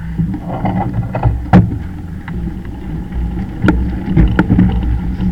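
Motorcycle engine running under way, with wind on the microphone and several sharp knocks and rattles.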